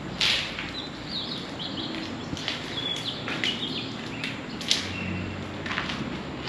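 Footsteps crunching through dry leaves and brittle fallen branches, several sharp crackles and snaps, the loudest just after the start and again near the end. Small birds chirp briefly in between.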